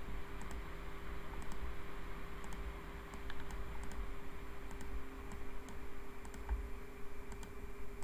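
Computer mouse clicking a few times at irregular intervals, small sharp clicks over a faint steady hum.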